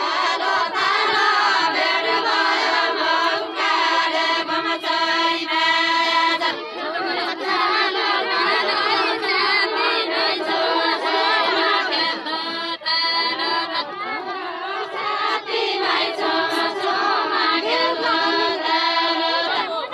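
A group of women singing a Deuda folk song together, many voices overlapping in a steady chant-like melody, with no instruments heard.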